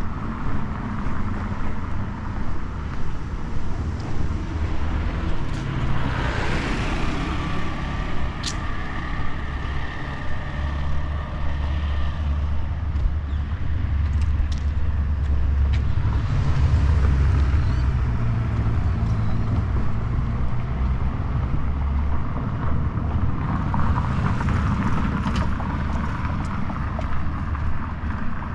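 Street traffic on a city avenue: cars and a heavier vehicle pass with a low rumble, one carrying a steady whine for a few seconds about eight seconds in. Regular footsteps run underneath.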